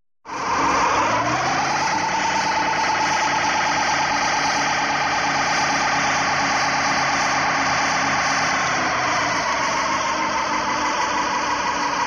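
Car engine revving hard, starting suddenly and climbing in pitch over the first second or two, then held at high revs with a slight wavering and a small dip near the end. This fits a car with its wheels spinning on ice.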